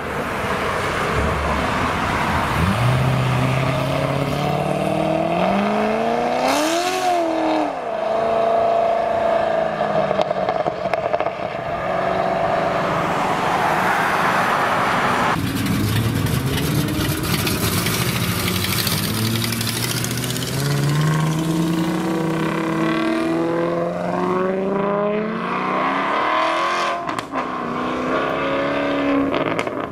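A C6 Corvette's V8 revving as it pulls out and accelerates away. Its pitch climbs, then drops at a gear change about seven seconds in. After a cut about halfway through, a Maserati Quattroporte's V8 climbs through its gears as it pulls away.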